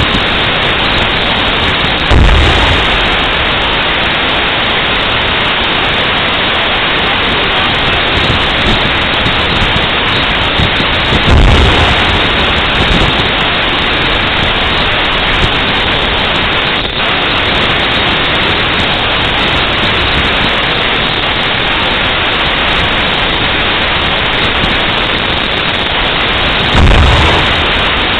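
Three dull booms of an M1A1 Abrams tank's 120 mm main gun firing, heard from a distance as short low rumbles about 2, 11 and 27 seconds in, over a constant loud hiss.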